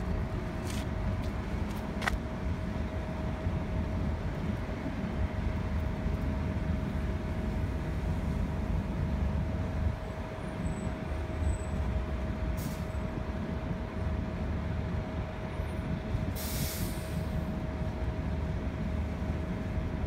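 Transit bus engine running with a steady low rumble and a constant hum as the bus creeps into the bay and stops. There is a short air hiss about two-thirds of the way in, and a louder air-brake hiss lasting about a second past three-quarters of the way.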